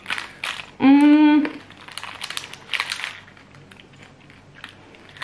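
Plastic sweet wrappers crinkling as wrapped chocolates and candies are handled in a bowl. A brief hummed 'mm' from a voice about a second in is the loudest sound.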